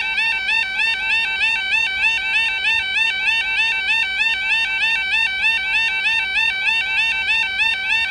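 Electronic warning alarm of a UK level crossing, the new type, sounding continuously while the crossing is closed: a pitched yelping tone that rises and repeats evenly several times a second.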